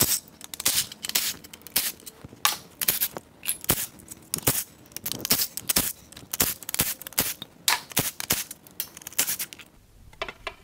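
Cordless power tool spinning out the timing-cover bolts on a Ford 5.0 Coyote V8 in many short bursts, one bolt after another, with rattles of loosened bolts. The bursts thin out in the last second.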